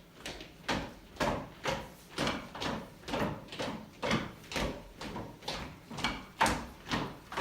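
Footsteps in a steady rhythm of about two a second, each step a short thud.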